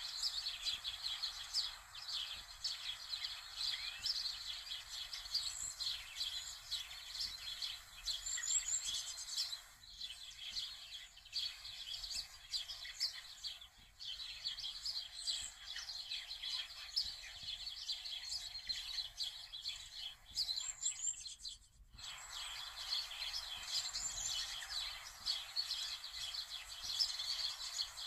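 A dense chorus of many small birds chirping and twittering, with a few higher calls now and then. It thins out for a few seconds, and about 22 seconds in it cuts off for a moment before carrying on.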